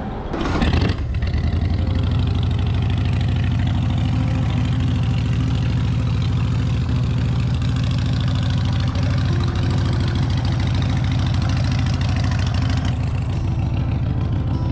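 Harley-Davidson Sportster 883's air-cooled V-twin engine starting up under a second in, then idling steadily with a low, even pulse.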